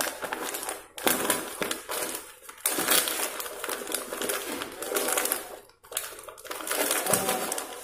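Crinkling and crackling of a small foil snack packet being squeezed, turned over and pulled open by hand, coming in irregular bursts with short pauses.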